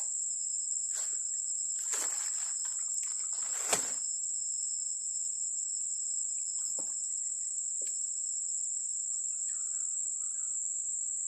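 Steady, high-pitched drone of forest insects, with a few short rustles and knocks about two and four seconds in.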